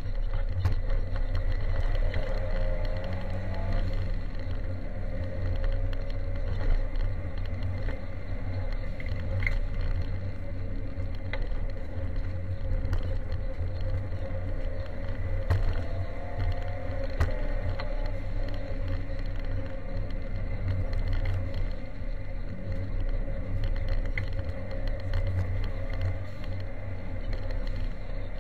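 Ford Sierra Cosworth 4x4's turbocharged four-cylinder engine heard from inside the cabin, driven hard on a gravel rally stage, revs rising and falling through the gears over a heavy low rumble. Frequent sharp ticks of gravel striking the car's underside.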